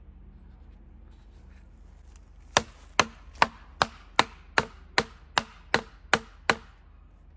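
A run of eleven sharp, even blows, about one every 0.4 seconds, from a blunt tool driving a guide track's spiked holding cleat into the end of a log.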